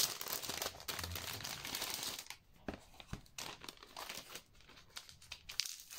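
Clear plastic sleeve crinkling as hands work a spiral-bound desk calendar out of it: a dense rustle for about two seconds, then quieter, scattered crackles.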